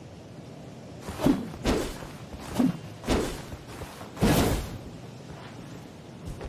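Katana swishing through the air in five quick swings, the last one longest and loudest.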